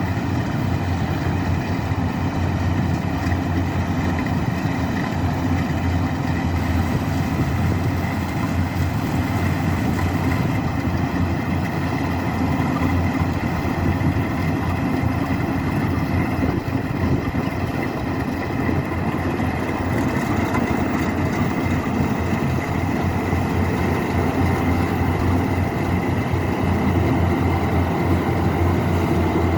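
Rice combine harvester's diesel engine and machinery running steadily.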